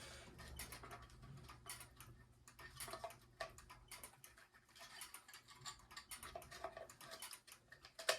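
Faint, irregular small clicks and taps of a battery being handled and pushed into a kinetic desk toy's battery compartment.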